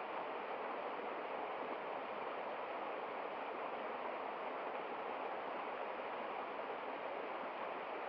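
Small forest waterfall: a steady, unbroken rush of falling and splashing water.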